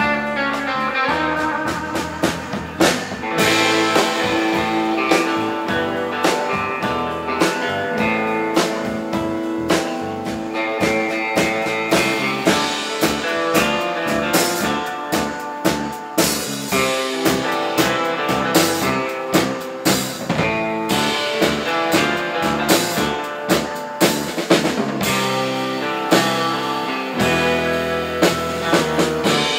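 Live instrumental rautalanka band: a twangy lead electric guitar plays the melody over bass guitar and a steady rock drum beat of about two hits a second.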